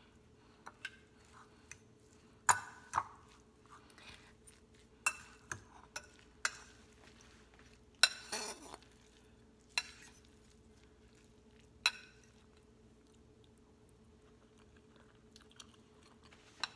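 Metal fork clinking and scraping against a bowl while quinoa and vegetables are stirred. There are about ten sharp, separate clinks over the first twelve seconds or so, fewer after that.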